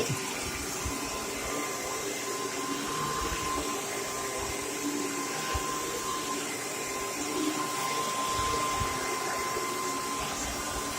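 Vacuum cleaner running steadily: a constant motor noise with a thin, steady high tone over it that kind of sounds like a fire alarm.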